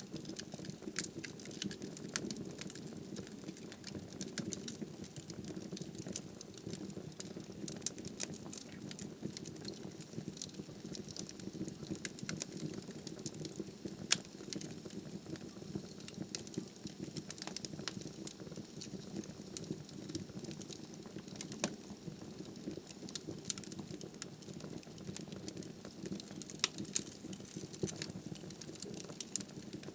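Wood fire burning in a fireplace hearth: a steady low rush of flames with frequent sharp crackles and pops from the burning firewood, one louder pop about fourteen seconds in.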